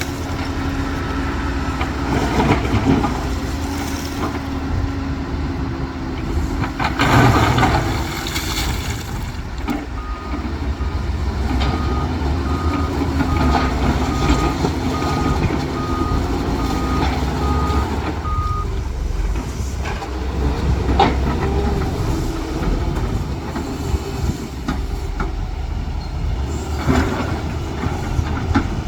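Heavy diesel construction machinery, an excavator and a dump truck, running steadily, with a few knocks. A reversing alarm beeps evenly, about one and a half beeps a second, for around eight seconds in the middle.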